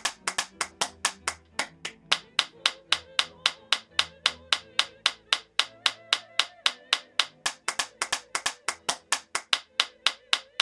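A person clapping their hands in a steady, fast rhythm, about four to five claps a second.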